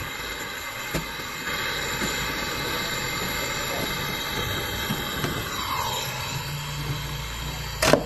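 Gas brazing torch flame hissing steadily as it heats a copper pipe joint on a refrigerator compressor, unbrazing the old leaking condenser line. Near the end there is one sharp pop as the flame goes out.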